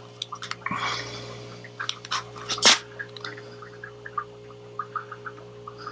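Paintbrush dabbing and brushing wet paint onto the painting. There is a soft scraping stroke about a second in, a sharper tap near the middle, then a run of small soft dabs. A steady low hum runs underneath.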